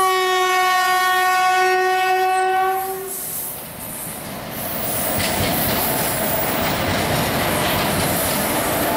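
Horn of an Indian Railways WAM4 electric locomotive sounding one long steady blast of about three seconds. The train, two WAM4 locomotives in front, then rolls slowly past close by, the noise of its wheels on the track building up about five seconds in.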